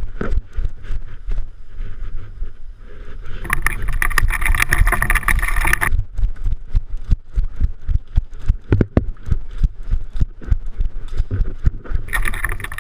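Steady rumble of wind and handling noise on the microphone, with two spells of loud hiss and rustling, and an irregular run of short clicks and knocks through the second half.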